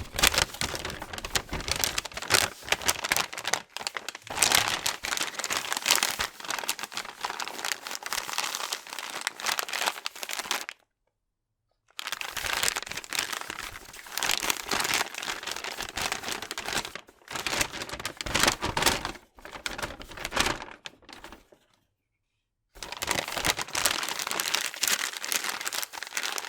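Paper bag being folded and handled: dense crinkling and crackling of the paper in three long stretches, broken by two short silences, one about eleven seconds in and one about twenty-two seconds in.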